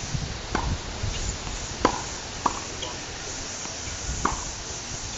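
Tennis forehands on a hard court: a few sharp pops from the racket striking the ball and the ball bouncing, spaced about half a second to two seconds apart. The loudest comes a little under two seconds in.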